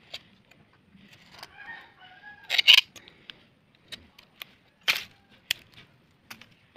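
A rooster crows once, about one and a half seconds in. Sharp clicks and rustles fall around it; the loudest is a short burst a little after two and a half seconds.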